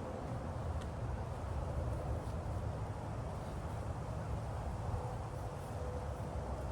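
Wind buffeting the microphone: a steady, unsettled low rumble.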